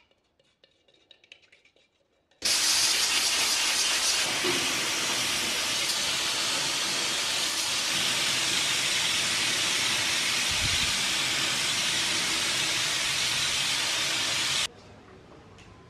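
Compressed-air gravity-feed spray gun spraying black paint: a loud, steady hiss that starts about two and a half seconds in and cuts off abruptly near the end. Before it, only faint small noises.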